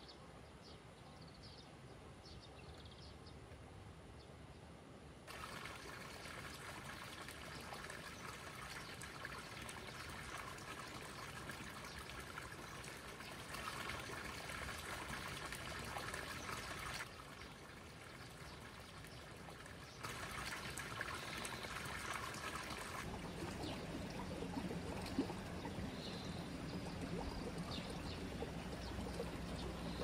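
Water trickling and running in a small stream, a steady splashing rush that jumps louder or quieter abruptly a few times.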